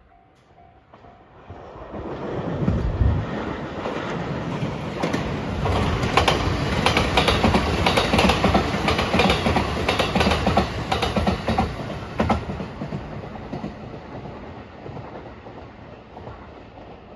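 JR West 227 series electric train passing close by, with a clatter of wheels over the rail joints. It swells in about two seconds in, is loudest in the middle, then fades as it goes away.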